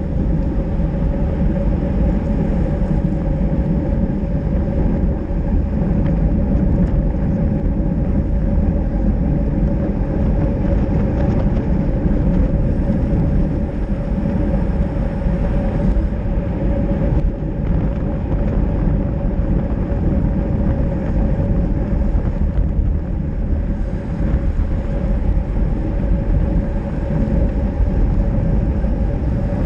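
Steady wind and road noise from an action camera mounted low on a moving road bicycle, its tyres rolling on wet asphalt, with a constant hum running underneath.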